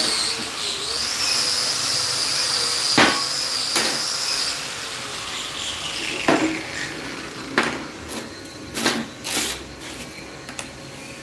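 Sharp metal clinks and knocks, about six in all, as a 3/8-inch round steel rod and a locking plier are handled against a steel tube while the rod is bent into a ring. Under them a steady high whine slides down in pitch and fades about five seconds in.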